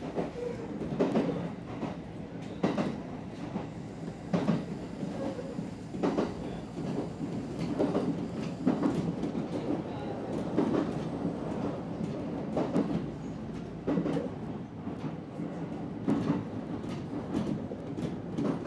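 Kintetsu Ikoma Line electric train running between stations, heard inside the cab. A steady low rumble is broken every second or two by the clack of its wheels over rail joints.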